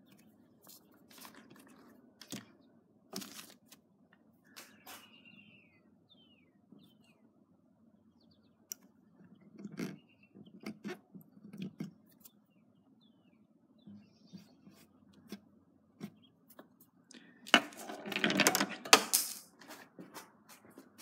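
Masking tape being handled and pressed down on a pinball playfield: scattered small clicks and taps, then a louder ripping noise lasting about two seconds near the end as tape is pulled from the roll.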